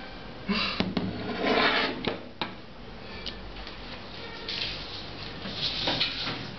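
A hammer knocks several times on a hard tabletop during the first two and a half seconds, with scraping and clatter between the knocks. One more click follows, then rustling handling noise near the end.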